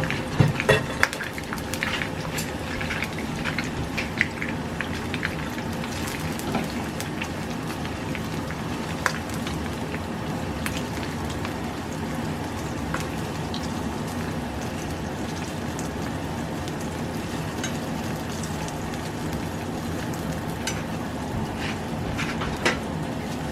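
Food frying in hot oil in a pan: a steady sizzle with fine crackling throughout, with a few clatters of utensil on pan in the first second and once near the end.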